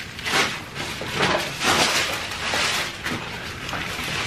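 Close-miked eating sounds: irregular crunchy, smacking chewing noises from a mouthful of fried chicken, mixed with crinkling of the paper food wrappers.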